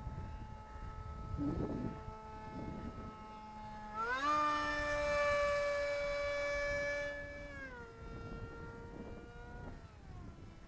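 Brushless outrunner electric motor and propeller of a foam RC parkjet whining steadily in flight. Its pitch rises sharply about four seconds in as it revs up, and it is held louder for some three and a half seconds. It then drops back down, and drops again near the end.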